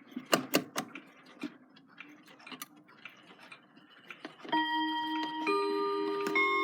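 Mechanical chiming clock ticking, then starting its chime about four and a half seconds in: one struck note rings on and a second, lower note joins it a second later, the ticking still audible underneath.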